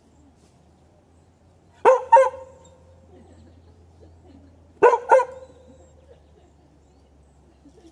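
A dog barking in two quick pairs of short barks, about three seconds apart.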